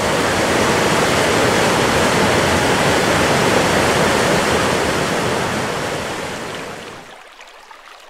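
Waterfall plunging into a rock pool: a steady rush of falling and churning water that fades out near the end.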